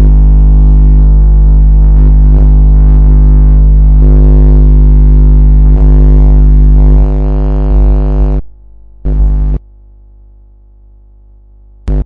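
Electric buzzing sound effect: a loud, steady electrical buzz over a deep hum. It cuts out about eight and a half seconds in, leaving a faint buzz, flares back briefly a second later, and comes back loud at the very end.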